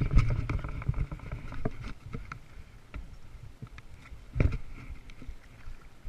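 Knocks and water splashing at the side of a small fishing boat while a hooked bass is brought to a landing net. A run of sharp clicks and taps fills the first two seconds, and a louder thump comes about four and a half seconds in.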